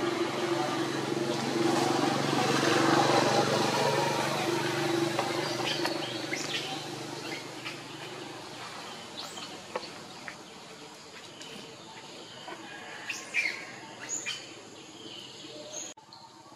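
A steady low motor hum swells and then fades away over the first several seconds. After that come scattered short, high chirping calls, with several close together near the end.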